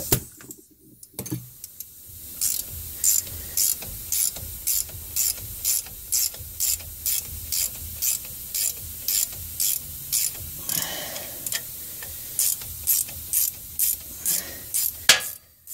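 Hand ratchet clicking steadily, about three clicks a second, as it turns the forcing screw of a two-jaw puller pressing the front differential's pinion flange off the pinion shaft.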